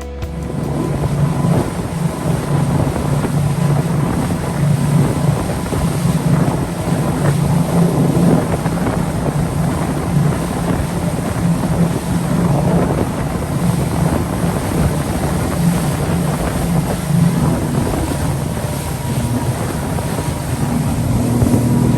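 Tour boat's engines running steadily under way, with wind buffeting the microphone.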